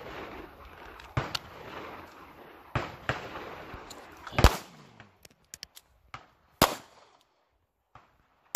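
Pistol shots fired one-handed in a slow, deliberate string, one every one and a half to two seconds: four single shots, plus a fifth right at the end, the loudest about four and a half seconds in. Each is a sharp crack with a short ringing tail.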